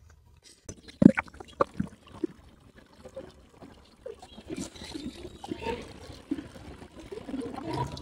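Water pouring from a plastic bottle into a shallow terracotta saucer, trickling and splashing, from about four seconds in. A few sharp knocks come before it.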